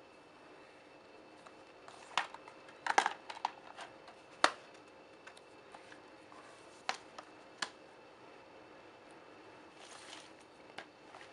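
Plastic DVD cases being handled on a hard tabletop: a series of sharp clicks and knocks as they are picked up, turned over and set down, then about a second of sliding swish as a case is pushed across the surface near the end. A faint steady hum runs underneath.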